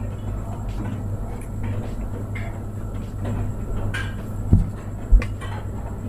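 Handling noise of hands turning a smartphone over: small clicks and rubs, with two low thumps about a second apart late on, over a steady low hum.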